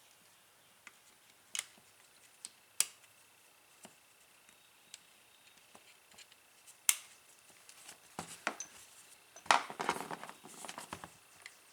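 Small parts of a partly dismantled power drill being handled: scattered sharp clicks and taps, then a short run of clattering a little over two-thirds of the way through.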